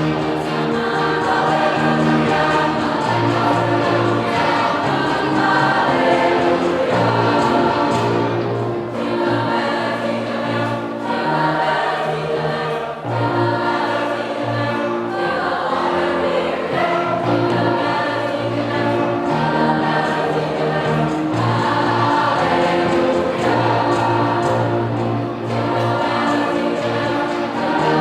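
A mixed choir singing a Christmas hymn in parts, with sustained chords over a steady accompaniment.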